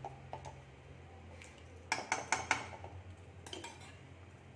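A steel spoon clinking against a metal kadai full of thick gravy: a few light taps, then a quick run of about four sharp clinks around two seconds in as the spoon is worked and lifted out of the pan.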